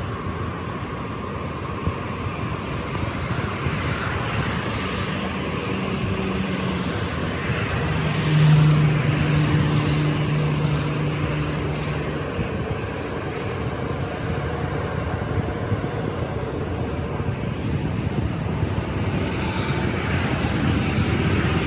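Steady vehicle-like rumble with wind noise, and a low droning tone that grows louder for a few seconds about eight seconds in.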